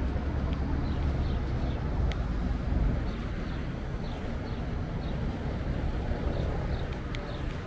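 Street traffic: cars and a pickup truck driving past, a steady low rumble that is loudest about three seconds in.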